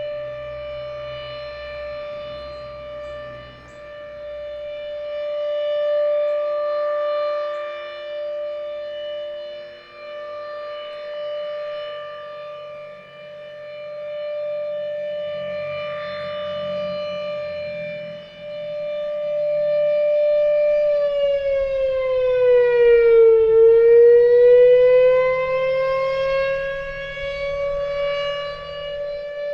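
Federal Signal RSH-10 rotating outdoor warning siren sounding a steady alert tone, swelling and fading as it turns. About two-thirds of the way through, its pitch sags briefly and then climbs back up. Wind rumbles on the microphone underneath.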